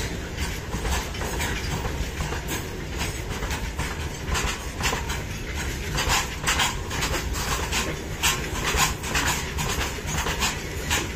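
Steel BOXN open freight wagons of a goods train rolling past close by: a steady low rumble of wheels on rails, broken by repeated sharp clicks and clacks from the wheel sets, heaviest around the middle.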